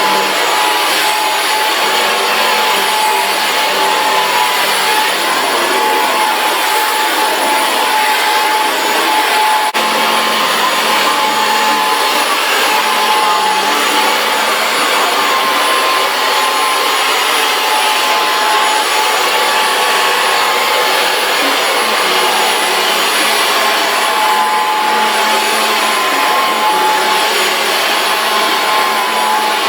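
Bissell Revolution Pet Pro vacuum running steadily: a motor's rushing air noise with a constant high whine.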